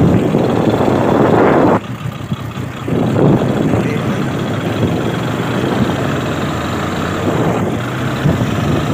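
A vehicle engine runs steadily as it drives along a road, with wind rushing over the microphone. The rush is loudest for the first two seconds, then drops.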